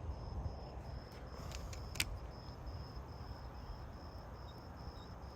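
Insects chirping in an even, high-pitched pulse about two or three times a second, over a steady low rumble. A single sharp click comes about two seconds in.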